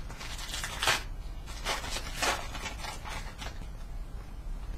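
Foil trading-card pack wrapper being torn open and crinkled by hand, in several short crackling rustles, the loudest about a second in.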